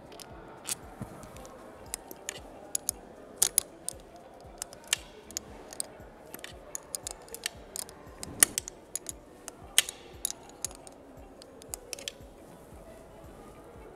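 Irregular metallic clicks and clinks of a spanner working the bolts on an engine's thermostat housing as the housing is being unbolted, the sharpest clinks a little past the middle.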